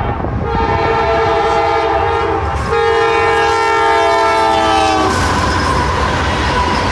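CSX freight locomotive's air horn sounding two long blasts with a brief break between them, the second sagging slightly in pitch as the locomotive passes. The horn stops about five seconds in, leaving the steady rumble of freight cars rolling by.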